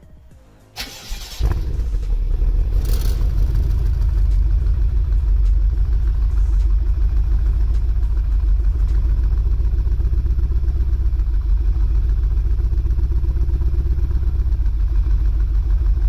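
BMW F10 M5's twin-turbo 4.4-litre V8 cranking on the starter and catching about a second and a half in, then settling into a loud, low idle rumble from the exhaust. The idle sounds a bit lumpy: rough and uneven, which the owner takes for the engine not firing properly or a leak somewhere.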